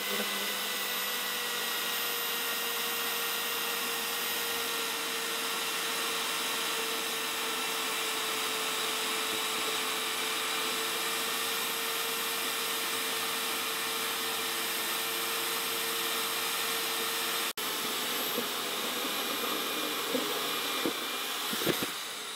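Portable bandsaw cutting slowly through a thick-walled steel pipe with solid concrete inside, its motor running with a steady whine. A few sharp knocks come near the end, and the motor's pitch starts to fall as it spins down.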